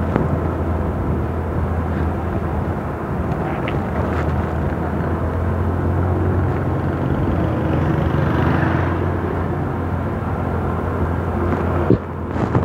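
Steady running noise of a moving vehicle: a low engine hum under road and wind rush on the microphone. A sharp click comes near the end, after which the sound gets quieter.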